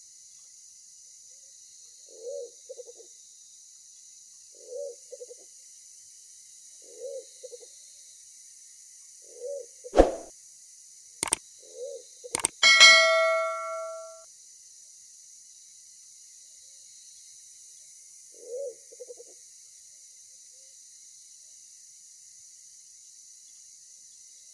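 A pigeon cooing: a short low coo with a quick stuttering tail, repeated about every two and a half seconds. Near the middle, a subscribe-button sound effect cuts in: three sharp clicks, then a bell ding that rings for over a second.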